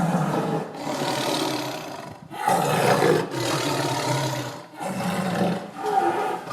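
Tiger growling and roaring: a run of about five deep, throaty roars one after another, each lasting a second or so, with short breaks between them.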